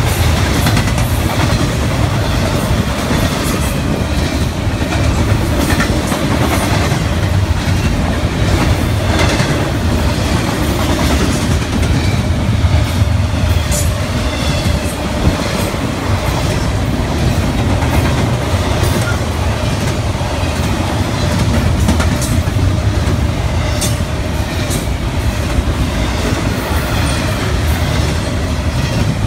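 Double-stack intermodal container train's well cars rolling past at speed: a loud, steady rumble of steel wheels on rail with a continuous clickety-clack of wheels over the rail joints.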